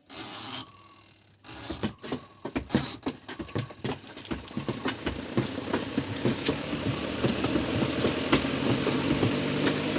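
Spin-dry tub of an LG 7 kg washing machine starting up with sheets inside: a couple of knocks at first, then a rattling motor hum that rises slowly in pitch as the drum spins up.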